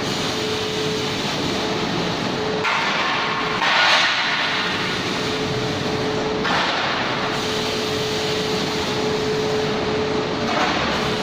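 Food-processing machines running: a steady machine noise with a faint held tone, broken three times by stretches of hissing, the longest and loudest about three to four seconds in.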